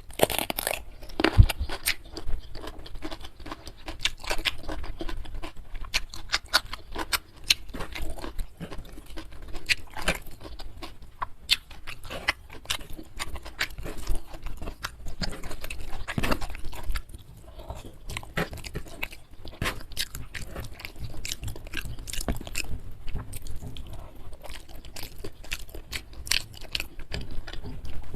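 Close-miked chewing and crunching of food in the mouth, a continuous run of irregular wet clicks and crisp crunches.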